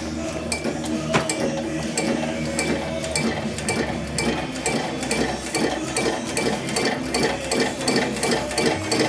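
Home-built solenoid engine with a truck PTO idle solenoid, running after a hand start. The solenoid clacks once per turn of the crank over a steady hum, and the clacks come faster as the flywheel picks up speed.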